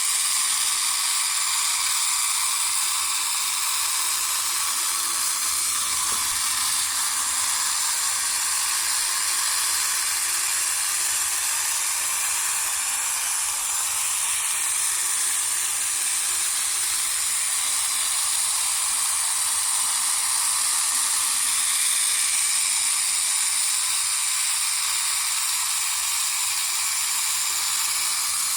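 Small tabletop robot vacuum toy running, its single little electric motor and gear-and-cam drive giving a steady high whir.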